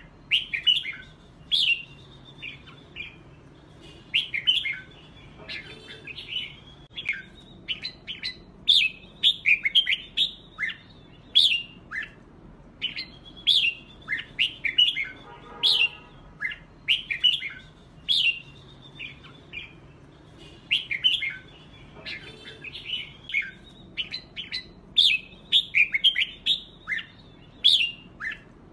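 Red-whiskered bulbuls singing against each other: quick, bright phrases of rising and falling whistled notes, one after another with short pauses between them.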